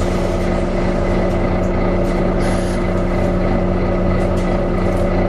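Volvo B9TL bus running with its engine cooling fan whirring steadily, a constant whine over the engine rumble. A brief high hiss cuts in about two and a half seconds in.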